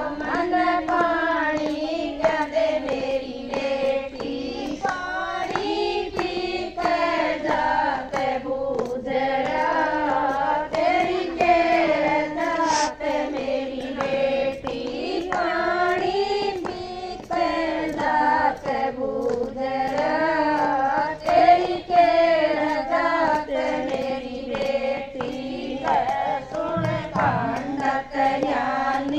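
A group of women singing a Hindi devotional bhajan together, with hand-clapping along.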